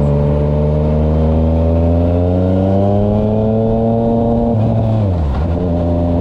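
Yamaha MT-09's three-cylinder engine pulling steadily up through the revs under acceleration, then dropping sharply in pitch about five seconds in and running steady again.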